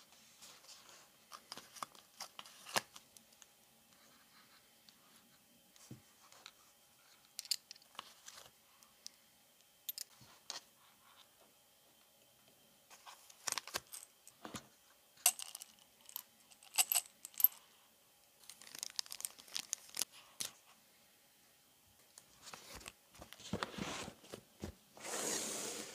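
Small metal pieces of a sealing-wax kit handled and set down: light clinks and taps of a brass wax spoon and seal stamp against a metal wax-melting stove and the box insert, scattered with short pauses. Near the end a longer rustling scrape as the kit's box lid is slid into place.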